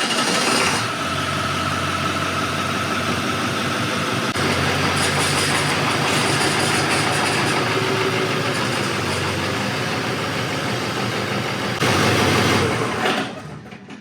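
Diesel engine running at a steady idle, starting abruptly and fading out near the end.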